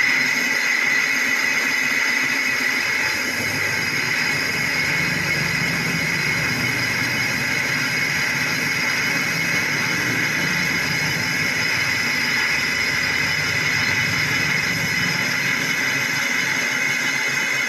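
Lathe spinning an engine flywheel while a cutting tool takes a facing pass across its clutch face, a steady machining noise with a high whine held throughout. The pass is skimming out the deep grooves worn by the clutch lining that cause clutch drag.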